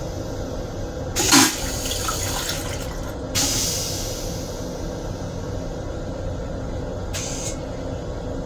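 Flush of a stainless-steel train toilet in an M7 railcar: a sudden loud whoosh about a second in as the bowl empties, then a hiss of rinse water that fades, and a brief hiss near the end, over the steady rumble of the train.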